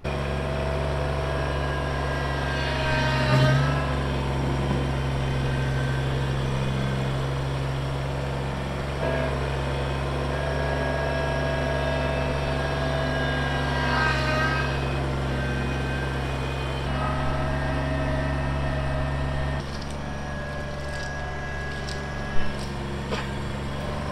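Kubota BX23S compact tractor's three-cylinder diesel engine running steadily under way. Its note shifts a few times and drops slightly in the last few seconds, with a couple of brief higher squeaks or rattles.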